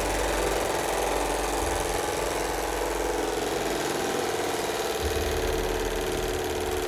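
PAZ bus diesel engine in runaway, running on its own at a steady high speed with fuel going in uncontrollably.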